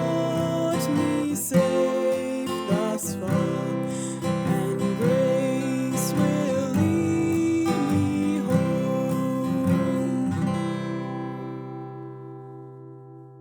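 Acoustic guitar music with strummed chords and a melody over them, ending about ten seconds in on a chord that rings out and fades away.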